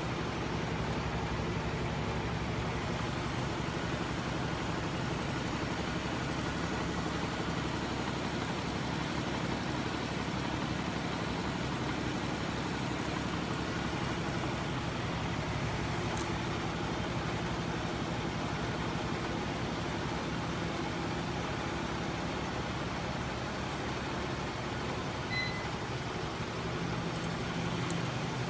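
A homemade flywheel-and-linkage magnet machine running steadily, driven by a small 12 V electric motor. Its spinning flywheel and drive give a continuous low hum.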